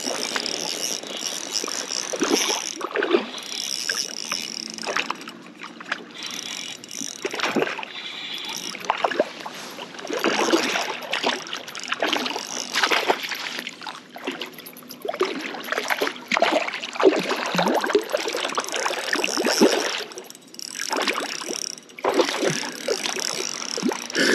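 A large hooked trout thrashing and splashing at the water's surface while being played in close to the bank, in irregular bursts of splashing.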